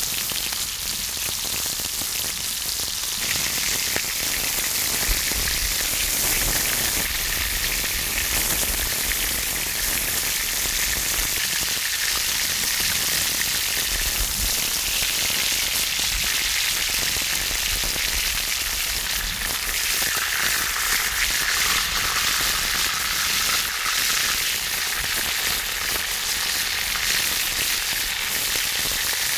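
Pork belly frying on a cast-iron cauldron lid (sotttukkeong): a steady sizzle of hot fat with fine crackling and spitting.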